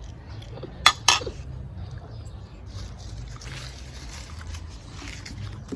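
Cutlery clicking twice against a plate, about a second in and a quarter second apart, over a steady low hum.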